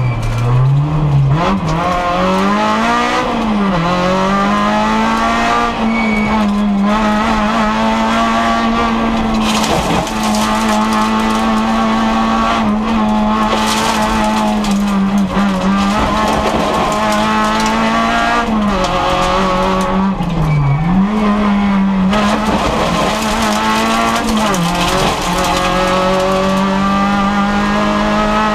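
Rally car's newly fitted engine heard from inside the cabin, held at high revs under load. The note dips sharply and climbs back several times as the driver lifts and changes gear.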